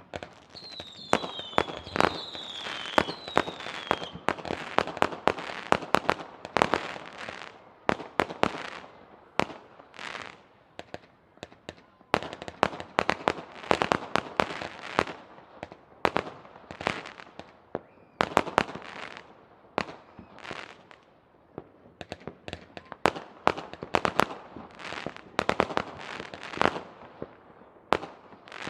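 Fireworks going off: a steady run of sharp bangs and crackling, some single and some in quick clusters, with a few short falling whistles from whistling fireworks in the first few seconds.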